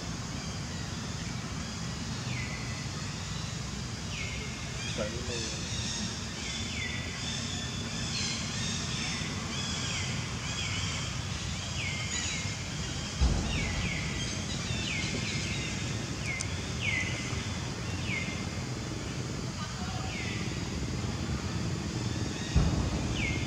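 Outdoor ambience: a steady low rumble under a short falling call that repeats about once or twice a second, with two sharp thumps, one about halfway through and one near the end.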